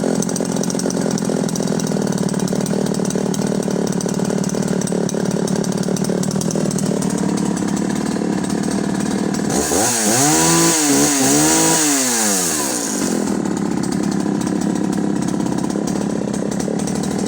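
Husqvarna Rancher 61's 61cc two-stroke chainsaw engine running steadily, then revved up and back down about three times in quick succession around the middle before settling back to a steady run.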